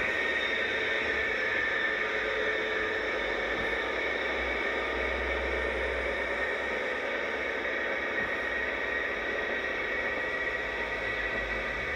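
An InterCity 125 (Class 43) diesel power car running steadily as it passes at low speed alongside a platform, heard under the constant hiss of an old VHS tape recording.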